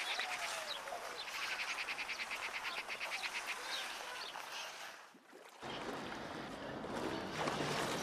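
Outdoor nature ambience: birds chirping over a fast, even pulsing animal trill of about a dozen pulses a second. About five seconds in it dips briefly and gives way to a different, denser ambience with a low steady hum.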